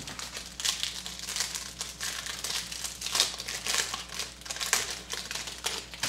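Clear plastic trading-card wrapping crinkling in the hands as a pack is handled, a run of irregular crackles.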